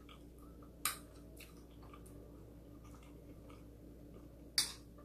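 Soft chewing with faint ticks of a metal fork and spoon on a ceramic plate, a sharp clink about a second in and another louder one near the end.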